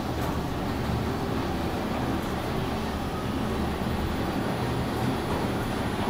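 OTIS 2000 bottom-drive traction elevator car travelling in its shaft: a steady low rumble of the ride.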